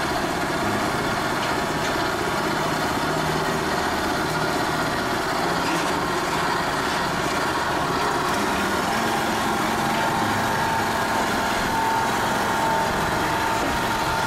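Small engine running steadily as a tracked Yanmar farm machine is driven slowly down the loading ramps off a truck.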